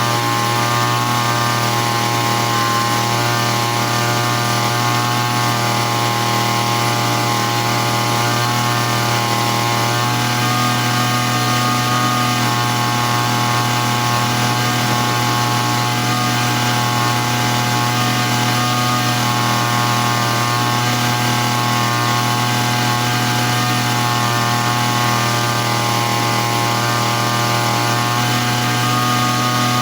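Small grass-cutter engine running steadily at an even speed, partway through a five-minute run after a repair, a test that it no longer stalls once warm.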